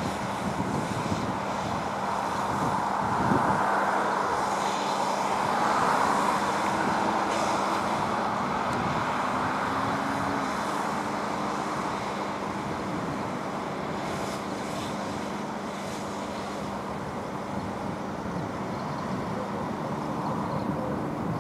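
Steady rushing noise of a running engine and traffic with a constant low hum, mixed with the hiss of a fire hose's water stream hitting a burning car.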